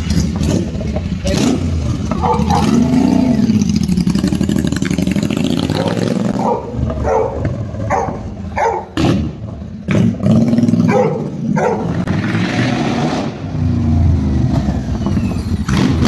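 Royal Enfield Super Meteor 650's 648 cc parallel-twin engine running through open exhaust headers with both silencers removed, revved repeatedly so the pitch rises and falls. A run of sharp pops comes from the exhaust around the middle.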